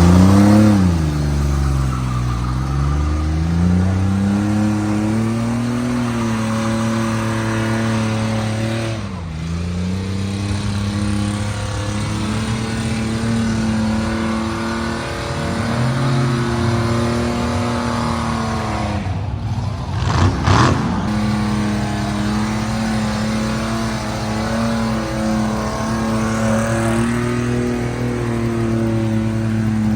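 V6 Chevy van engine revved hard and held at high revs through a long burnout, climbing sharply at the start and briefly dropping off about 9 s in and again about 20 s in.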